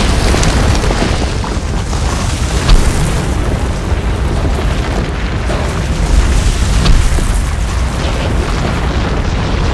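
Loud, continuous deep rumble with scattered crackles and pops, a blast- or eruption-like sound effect.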